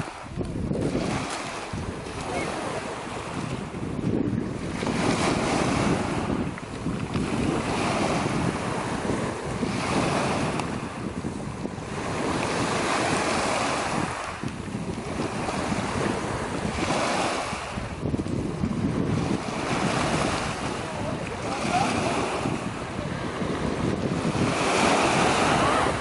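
Small waves breaking and washing up and back over a beach of smooth, rounded black pebbles, rising and falling every few seconds as each wave comes in, with the stones rattling in the backwash. Wind buffets the microphone.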